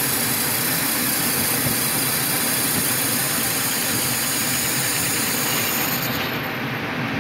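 Metal lathe running steadily, its spindle and chuck spinning while a cutting tool turns a small brass bush.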